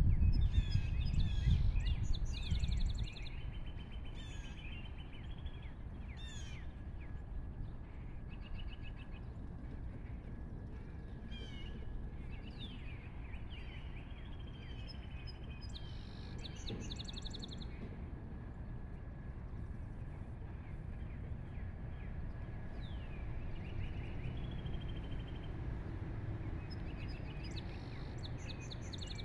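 Small birds chirping and trilling over a steady low outdoor rumble, which is louder for the first three seconds and then drops away. A faint steady high tone runs underneath.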